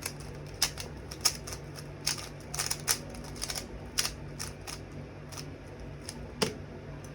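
Scattered sharp plastic clicks and clacks of a Rubik's cube being turned and handled, some in quick little runs, with one heavier knock near the end, over a low steady hum.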